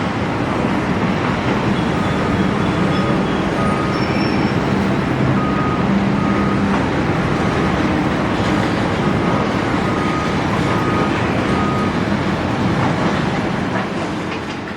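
Heavy excavator's diesel engine and hydraulics running steadily. A warning beeper sounds in stretches, about two short beeps a second, and everything fades out near the end.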